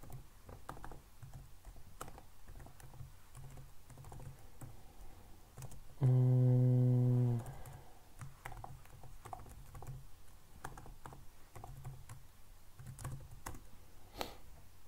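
Computer keyboard typing: irregular key clicks as code is entered. About six seconds in comes a steady low hummed 'mm' from a man's voice, lasting about a second and a half. It is louder than the typing.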